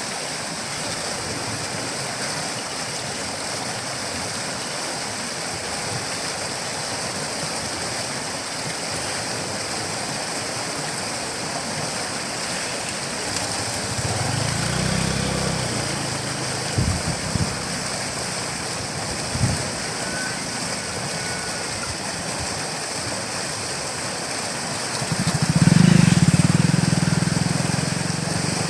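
River water rushing steadily. A low motor hum swells briefly about halfway through, with a few knocks, and comes in again louder near the end before easing off.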